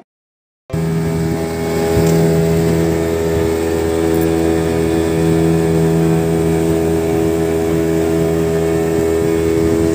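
Motorboat engine running steadily at cruising speed, a constant drone with the rush of water and wind around the hull; it starts less than a second in.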